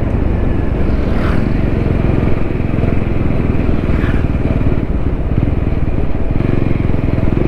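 TVS Apache RTR 200 motorcycle's single-cylinder engine running steadily while the bike slows down on the road.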